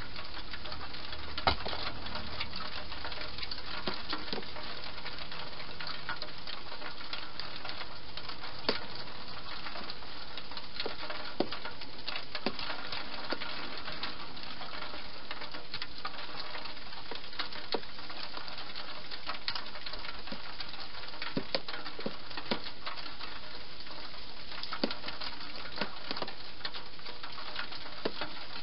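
Wild hedgehog eating at the bowls in a plastic feeding box: irregular crunching clicks, the loudest about a second and a half in, over a steady hiss.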